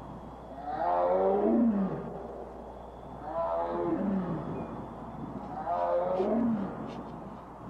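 Recorded tiger calls played back through a loudspeaker: three long roars about two and a half seconds apart, each falling in pitch.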